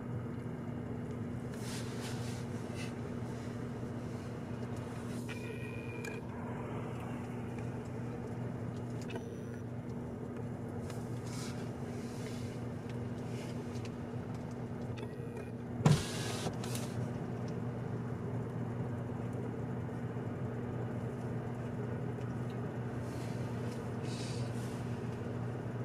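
A steady low hum with a few even tones over a faint noise, and a single sharp knock about sixteen seconds in.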